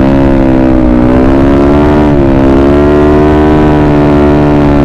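Yamaha Mio Sporty scooter's single-cylinder engine pulling at speed. Its pitch sags briefly about a second in and again about two seconds in as the throttle eases, then climbs a little and holds steady.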